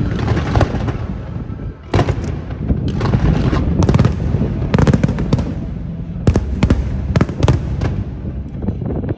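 Aerial fireworks bursting in quick succession a few hundred metres away: a string of sharp bangs, several close together, over a continuous low rumble of echoing reports.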